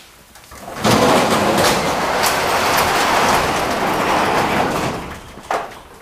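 Sectional overhead garage door rolling up in its tracks, a loud rattling run of about four seconds that starts just under a second in and fades about five seconds in.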